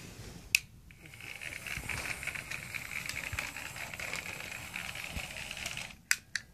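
Bachmann model train locomotive's small electric motor whirring as it runs fast over plastic track and a crossing, with a light rattle of wheels on the rails. It starts about a second in and cuts off suddenly near the end, followed by a few sharp clicks.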